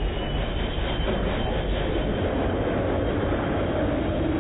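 Corvette Z06 drag car's V8 engine running loudly and steadily at low revs with a heavy rumble, its note rising a little near the end as the car moves forward.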